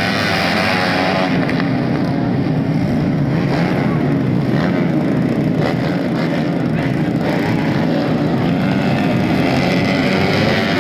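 A field of motocross dirt bikes revving together and pulling away from the start line, many engines blending into one loud, steady din.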